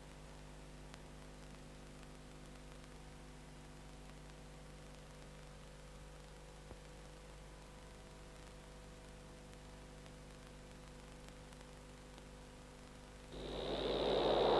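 Faint steady electrical hum with a low buzz. Near the end a gong is struck and swells quickly to a loud, shimmering ring.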